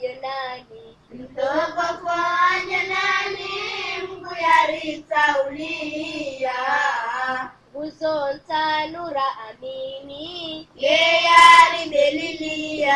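A solo high voice, like a child's, singing a Swahili Ramadan song in long, wavering held notes, with little or no instrumental backing.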